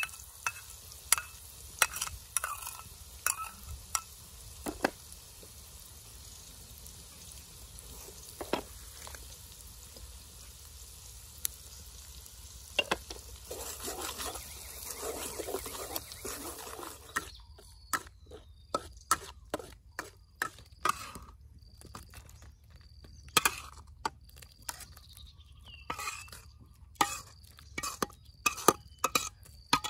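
Chili-garlic sauce sizzling in oil in a steel wok while a metal spoon stirs it, clicking and scraping against the pan. The sizzle grows louder from about 13 s, then stops after about 17 s, and only scattered sharp clicks follow.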